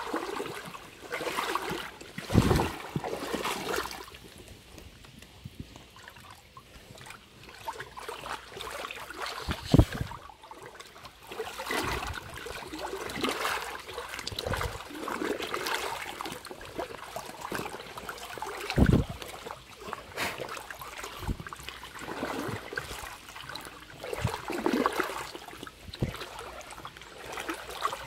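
River water splashing and trickling in uneven swells, broken by a few heavy dull thuds, the loudest about ten seconds in.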